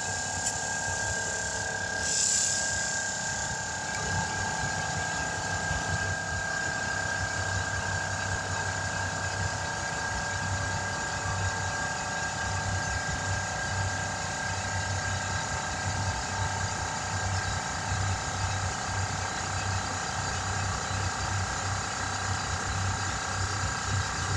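An engine running steadily, with a pulsing low hum. A short burst of noise comes about two seconds in.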